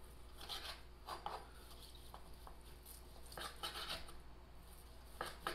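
Knife slicing through a cooked steak on a cutting board: a few faint scraping strokes of the blade.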